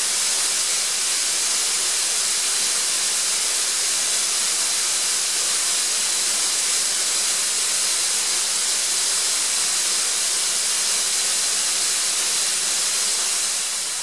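Atlas Copco ZR200 two-stage oil-free screw compressor running unloaded: a loud, steady hiss of air. It begins to fade near the end.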